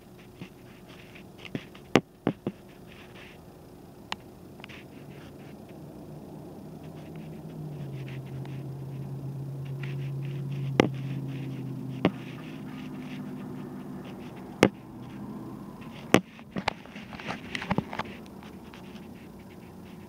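A low mechanical hum swells over several seconds in the middle and fades again, with scattered sharp clicks and a cluster of quieter ticks near the end.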